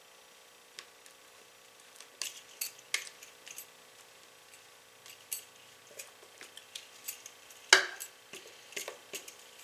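Spatula scraping cake batter out of a metal mixing bowl, with scattered short scrapes and clinks against the metal, and one sharp knock about three-quarters of the way through.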